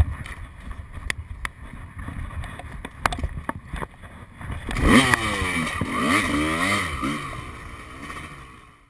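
Knocks and scuffs as a 250cc two-stroke motocross bike is handled in the sand, then about five seconds in its engine comes in loudly, revving up and down as it pulls away, and fades out near the end.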